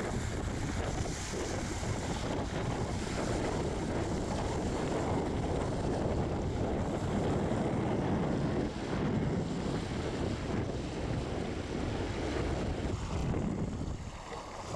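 Wind buffeting the microphone over the wash of sea waves, a steady rushing noise.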